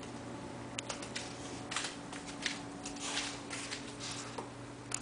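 Scattered light clicks and a few brief rustles of movement on a tile floor, over a steady low hum.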